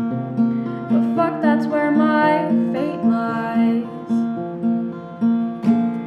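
Acoustic guitar picking a repeated note pattern of a folk song's instrumental ending, about two notes a second, closing on a strummed chord near the end.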